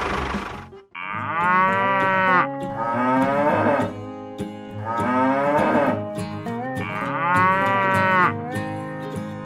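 A small engine running fades out in the first second. Then a cow moos four times, each call about a second long with sliding pitch, over faint background music.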